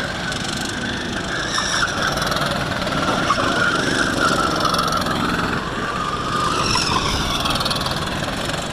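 Go-kart engine running at speed, its pitch rising and falling through the corners.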